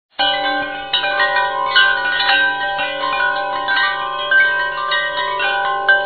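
Background music of chiming, bell-like notes ringing in an overlapping melody, cutting in suddenly just after the start.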